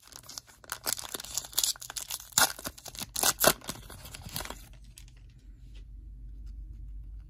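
Foil wrapper of a Panini Prestige football card pack crinkling and being torn open, a run of sharp crackles and rips that stops about four and a half seconds in.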